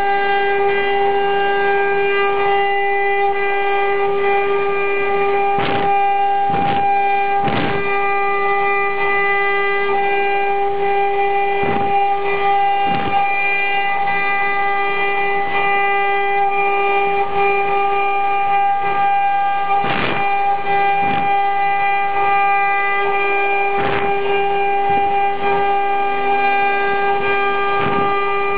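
Multi-head CNC wood router's spindle running at a steady high-pitched whine while its bit carves a relief into a wooden panel, with sharp clicks now and then.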